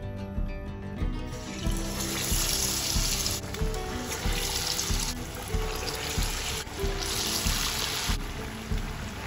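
Batter-coated potato chops (aloo chop) sizzling hard as they deep-fry in hot oil, the sizzle starting about a second in and swelling and easing in waves as more chops go in. Background music plays underneath.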